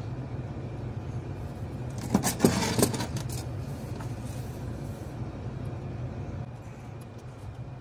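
Small metal parts clicking and rattling as they are handled, in a short cluster about two seconds in, over a steady low hum.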